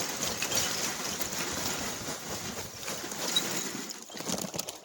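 Charcoal being scraped and raked out of a fire pit, the lumps crunching and clattering in a dense run of small clicks that thins out near the end.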